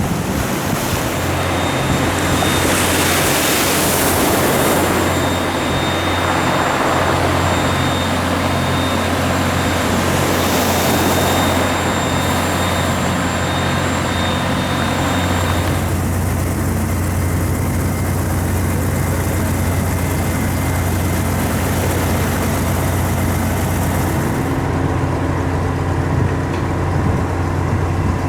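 A steady low engine drone with a constant hum. A rushing noise lies over it and thins out about halfway through.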